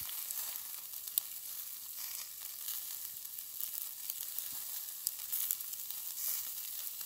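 Meat sizzling on a charcoal barbecue grill: a steady hiss with occasional small pops.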